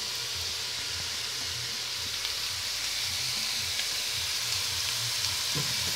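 Minced meat and onions frying in a pot: a steady sizzle with a few faint crackles.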